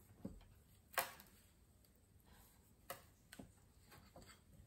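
Metal cookie scoop clicking and knocking against the mixing bowl while scooping cookie dough: a handful of short, sharp ticks, the loudest about a second in.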